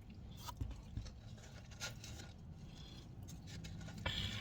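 Quiet eating sounds: soft chewing and a few small clicks and rustles of food being handled, with a slightly louder rustle near the end.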